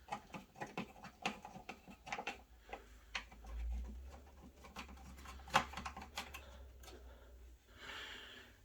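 Irregular light clicks and taps of hands fitting the thumb screws and handling the panels at the back of a PC case, with a low rumble of handling in the middle.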